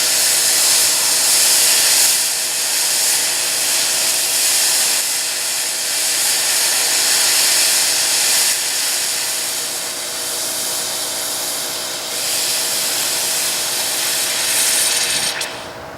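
Red-hot high-carbon steel striker hissing and sizzling steadily as it is lowered slowly into a water quench bucket. The hiss cuts off sharply near the end.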